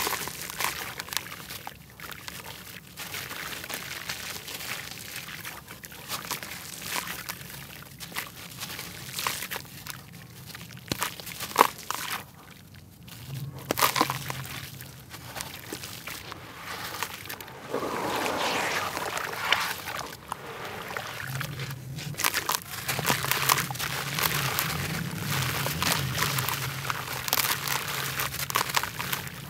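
A wet block of grainy red dirt being crumbled by hand into a basin of muddy water: gritty crunching and crackling, with sloshing water and the trickle of falling grit.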